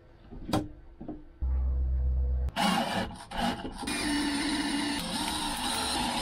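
Cordless drill/driver motor running steadily from about two and a half seconds in, driving the mounting screws of a dash-mounted autopilot display; a couple of light clicks come before it.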